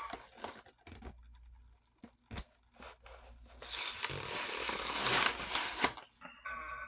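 Hot Wheels Team Transport blister package being torn open: faint handling clicks, then a loud tear lasting about two and a half seconds from midway.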